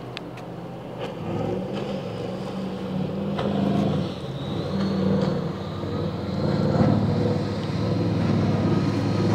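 MTI high-performance powerboat running at speed, its engines droning loudly over the rush of wind and spray. A thin high whine joins about four seconds in, and the engine note swells louder toward the end.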